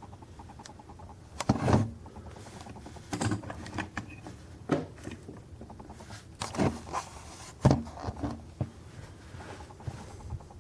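Handling noise from a 1/50 scale diecast drill rig model being moved about by hand: a series of irregular knocks, clicks and light scrapes of its metal and plastic parts, the loudest about one and a half seconds in and again near eight seconds.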